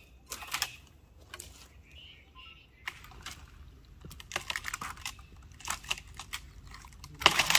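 Dry twigs and forest litter crackling and snapping in irregular light clicks, with a louder burst of crackling near the end.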